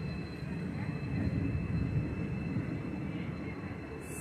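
Two Indian Railways passenger trains passing side by side, heard from an open coach doorway: a steady low rumble of wheels and coaches on the rails. A loud high hiss cuts in suddenly near the end.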